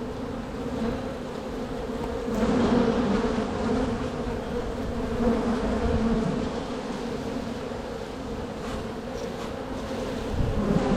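A swarm of honeybees buzzing around an opened hive: a dense, continuous hum of many bees in flight, growing louder about two and a half seconds in and again near the end.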